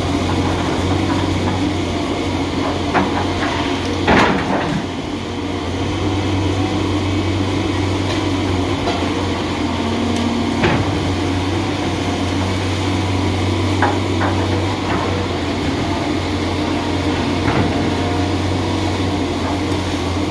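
A John Deere 350G excavator's diesel engine runs steadily as the machine works, with a handful of sharp knocks and clunks, the loudest about four seconds in.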